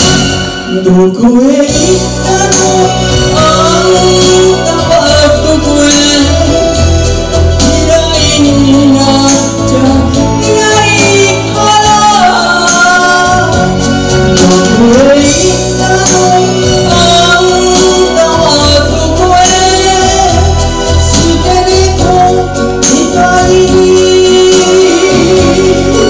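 A woman singing a Japanese enka ballad into a microphone over instrumental accompaniment.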